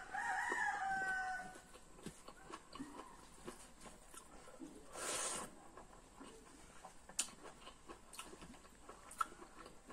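A rooster crowing for about a second and a half, its drawn-out call falling slightly in pitch as it ends. After it come faint clicks and smacks of eating by hand, with a brief rush of noise about five seconds in.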